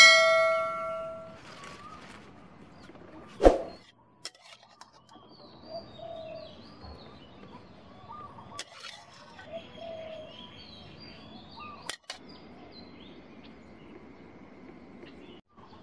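A bright electronic chime rings at the start and fades over about a second and a half, with a sharp knock about three and a half seconds in. After that, small birds chirp faintly and keep chirping.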